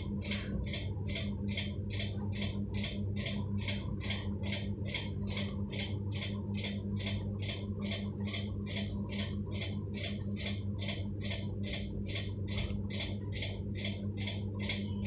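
Electric fan running with a steady motor hum and a regular ticking or scraping noise, about two to three strokes a second, keeping time with its rotation: a weird noise that points to something catching or rubbing as it turns.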